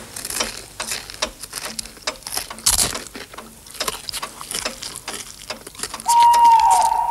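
Chewing and crunching on fried chicken drumsticks, a run of quick irregular clicks and crunches. About six seconds in a steady high whistling tone starts and dips briefly in pitch.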